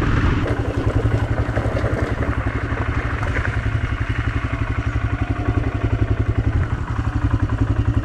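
Motorcycle engine running steadily at low speed, heard on board. Its exhaust makes an even, rapid pulsing beat, with a rushing riding noise over it.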